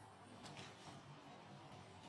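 Near silence: faint background noise with a couple of soft ticks.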